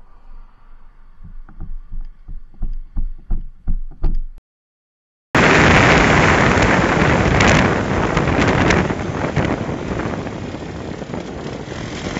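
A run of soft knocks, about four a second and growing louder, stops suddenly. After a brief silence comes loud, steady wind rush on the microphone of a motorcycle riding at about 30 mph, easing off slowly.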